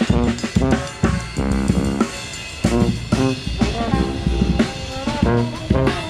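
Drum kit and trombone playing an upbeat tune, with sharp drum hits under the trombone's notes and longer held notes in the second half.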